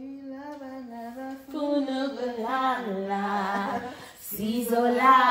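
A woman singing slow, long held notes with a slight wobble in pitch and no instruments heard. She breaks off briefly near the end, then comes back in louder.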